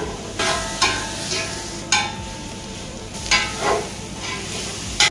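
Food being stirred and mixed, with about six sharp clacks and scrapes spread through it.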